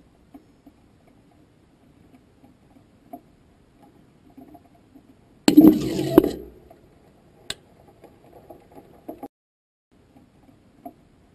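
Onboard rocket camera audio in flight: faint, uneven rattling and clinking of the vehicle's structure, with a loud clattering burst about five and a half seconds in that lasts about a second.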